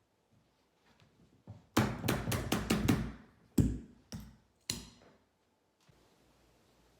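A quick run of about six sharp impacts, then three single knocks about half a second apart, as the carpet runner is fastened down on a stair.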